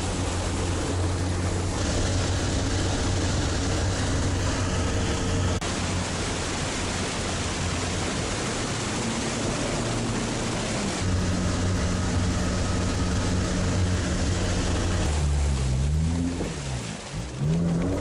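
Amphibious all-terrain vehicle's engine running under load as it crosses a water channel, over a steady rushing noise. Its note rises about two-thirds of the way through, then near the end the revs drop away and climb back up.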